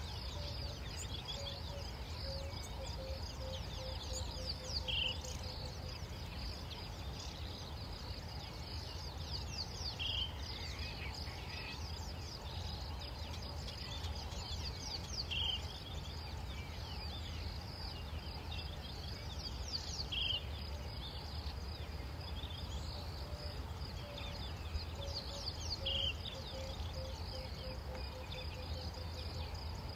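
Quiet savanna dawn ambience over a steady low hum: a short high bird call repeats about every five seconds, and near the start and again near the end a bird gives a series of low cooing notes that come faster and faster, with scattered high chirps throughout.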